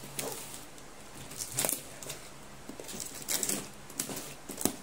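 Small knife slitting the plastic packing tape on a cardboard box: a handful of short, crackling rips of tape, with cardboard rustling under the hands.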